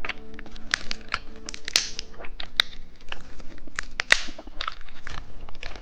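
Close-up crinkling and crackling of a plastic candy wrapper being handled, as a run of sharp, irregular crackles and short rasps.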